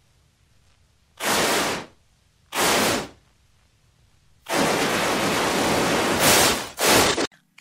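Steam locomotive sound effect: two short puffs of steam about a second apart, then a longer hiss of escaping steam starting about halfway through, followed by one more short puff that cuts off sharply near the end.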